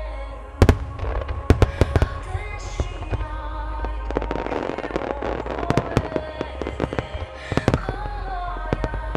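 A wide row of fireworks going off in quick, uneven cracks and bangs. The first come about half a second in, they thicken into a dense crackle in the middle, and another cluster of bangs comes near the end. Music plays steadily underneath.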